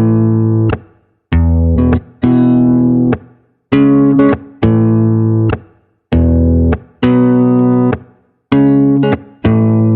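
Background music: chords on an electric guitar, each struck sharply and held about a second, with short breaks between them.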